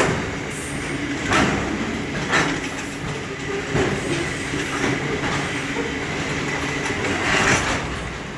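Container wagons of a freight train rolling past at speed: a steady rumble of wheels on rail, broken by several irregular sharp clacks and knocks as the wheels run over the track.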